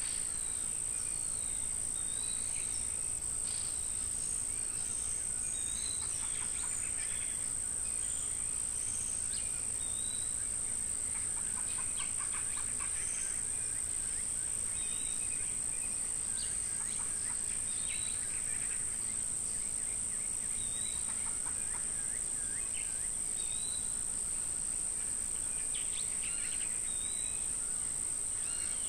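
Insects keep up a steady high-pitched drone while birds call over it: a short call repeated every two to three seconds, with scattered chirps from other birds.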